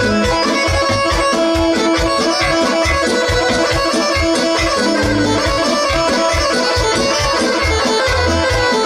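A band playing an instrumental kolo, a Serbian folk circle-dance tune, with sustained reedy melody lines over a steady fast beat.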